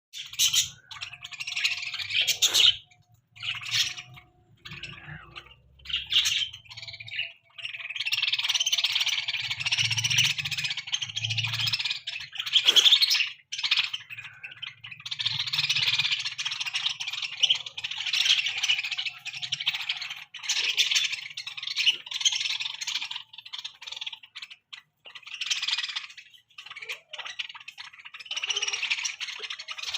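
A flock of budgerigars chattering and squawking harshly while squabbling over food, in long stretches with short breaks.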